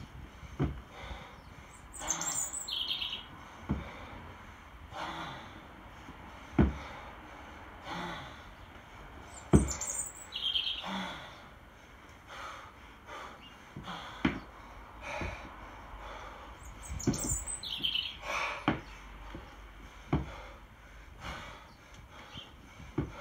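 Dull thumps about every three seconds, the loudest near the middle, as a 24 kg kettlebell is jerked overhead and dropped back to the rack, with hard breaths between the reps. A bird chirps three times in the background.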